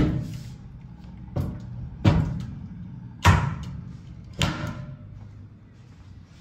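Five sharp bangs about a second apart, each with a short ringing tail, over a steady low hum.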